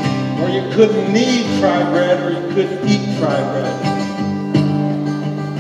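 Acoustic guitar strummed, its chords ringing between strokes, with wordless vocalizing sliding over it.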